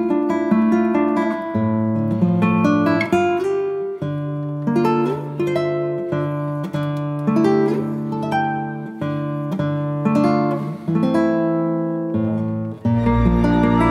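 Background music of plucked acoustic guitar picking single notes and chords. Near the end, a fuller section comes in with a deep, held bass.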